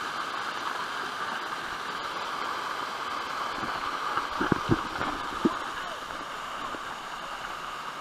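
Small waterfall pouring onto rocks into a pool: a steady rush of falling water, with a few short plops about halfway through.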